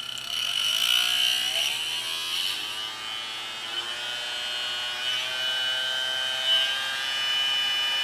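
Small DC motor and impeller fan from a hair dryer, its blades cracked, spinning up as the voltage is raised toward 12 volts. It whines, rising in pitch over the first few seconds, then runs steadily with a high tone above.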